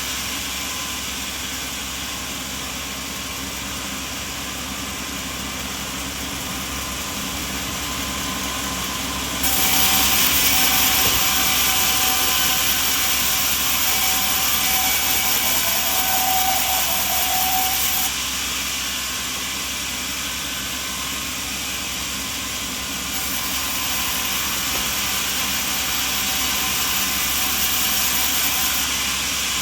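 Sawmill machinery running steadily. About a third of the way in it gets louder and hissier, with a faint high whine, for around eight seconds, then settles back.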